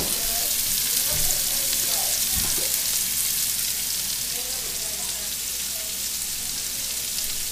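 Brussels sprouts, turnips and bacon searing in hot bacon fat in a stainless steel skillet: a steady sizzle.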